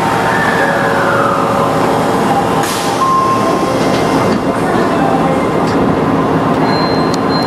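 Steady running hum and rush of a subway train standing at an underground platform, heard from inside the cab, with a brief falling whine near the start and a couple of short tones later on.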